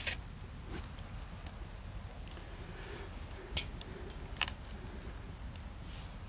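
A few sharp clicks and taps from handling things, over a faint steady low background rumble; the loudest click comes right at the start.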